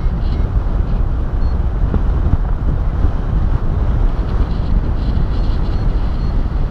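Wind rushing over the microphone of a camera in paraglider flight: a steady, loud, low rumbling buffet from the airflow.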